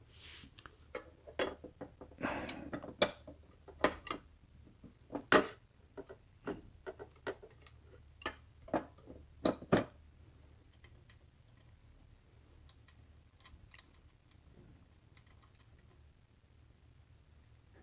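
Clicks and light knocks from a monitor stand's base and mounting plate being handled while its thumbscrew is turned by hand to fasten the base. The clicks come thick and uneven for about ten seconds, then thin out to faint, scattered ticks.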